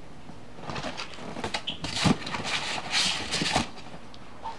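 Packaging being handled and rustled as items are put back into the box, with scattered clicks and one sharp knock about two seconds in; the handling stops about a second before the end.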